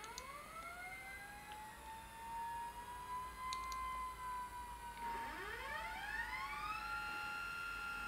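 Stepper motors of a StackShot 3X motorised pan-tilt rig whining as they play back a recorded move. One tone rises as a motor speeds up, then drifts slowly. About five seconds in, a second whine rises and settles into a steady pitch as another axis starts moving.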